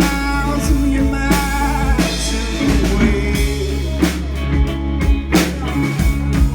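Live rock band playing an instrumental passage between verses: drum kit keeping the beat under guitars and bass, recorded in the room.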